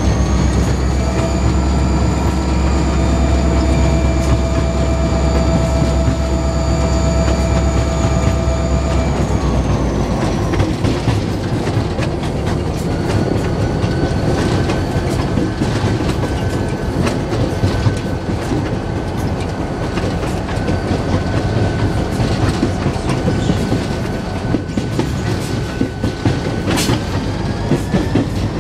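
Diesel locomotive CNW 6847 heard from its cab: the engine runs under power with a strong low drone and several steady whining tones, then its note drops away about a third of the way in. After that the train rolls on with wheels clicking over rail joints, a thin steady whine and a sharp click near the end.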